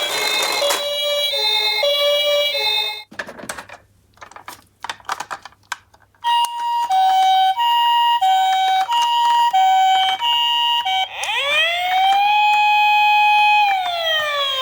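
Toy ambulance minicars' electronic sirens. A two-note hi-lo siren stops about three seconds in, followed by a few seconds of scattered clicks and knocks. Then another two-note siren switches notes a little faster than once a second, and near the end gives way to a wail that rises, holds and then falls.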